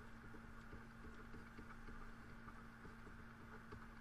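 Near silence: faint room tone with a steady low hum and faint soft ticks several times a second.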